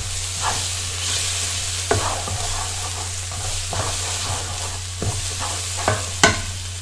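Chilli paste sizzling in hot oil in a wok, being fried off after most of its moisture has cooked out, with a spatula stirring it and scraping and knocking against the wok about once a second, loudest near the end.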